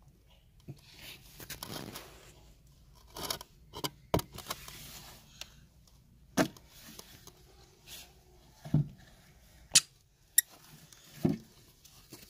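Wooden spatula scraping thick, sticky jaggery-and-peanut chikki mixture out of a metal karahi into a clay bowl, with several sharp knocks along the way.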